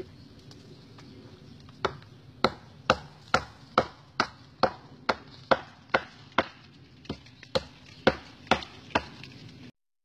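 Machete chopping into the soft, rotting wood of a dead coconut palm trunk: a steady run of sharp strokes, about two a second, starting about two seconds in and stopping shortly before the end.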